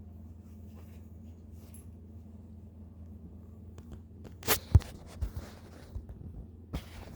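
Young puppy hiccuping: a few short, sudden hiccup sounds starting a little past halfway, the loudest two close together, then several fainter ones, over a low steady hum.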